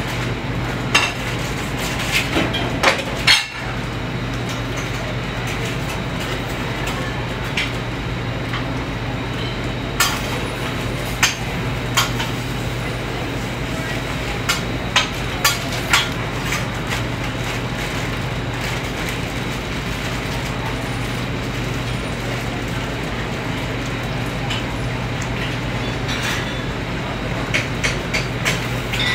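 Busy commercial kitchen at work: a steady low machine hum under scattered clinks and knocks of metal utensils and pans, some of them in quick clusters.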